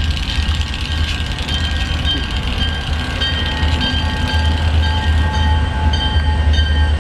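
EMD diesel locomotives, an SD40-2 and a GP38-2, rolling slowly past with a steady, deep engine rumble. Thin high squealing tones come and go over it.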